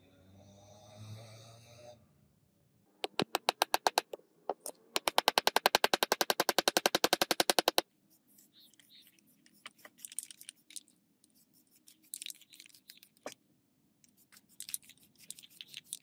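Aerosol spray paint can being shaken, its mixing ball rattling at about ten clicks a second in two bouts, the second about three seconds long. After it come irregular short scratchy rubbing sounds of a cloth worked along a wooden hammer handle.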